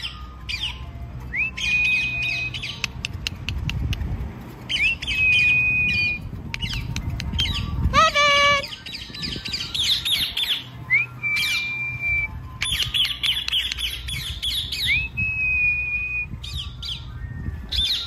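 Recorded parrot calls played from a phone speaker to lure a lost African grey parrot: harsh squawks, and a whistle that rises and then holds one note for about a second, coming back every few seconds. Low wind rumble on the microphone underneath.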